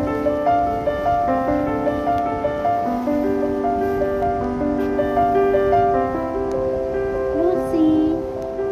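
Lullaby-style music played on a keyboard, a slow melody of long held notes.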